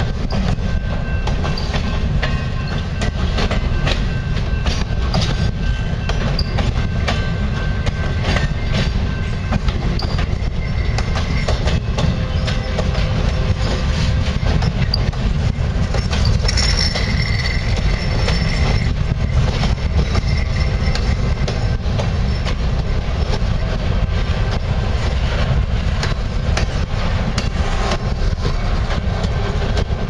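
Freight train cars, boxcars then covered hoppers, rolling past close by: a steady heavy rumble with wheels clicking over the rail joints, and a thin metallic wheel squeal for a couple of seconds a little past halfway.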